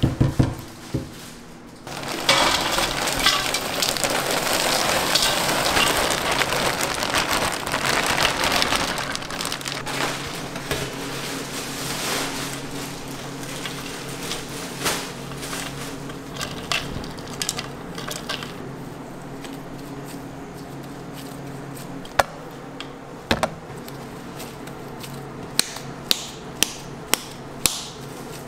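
Gloved hands squishing and kneading a big bowl of raw ground beef, loudest in the first several seconds, then packing handfuls into balls with sharp pats and slaps near the end. A steady low hum runs underneath.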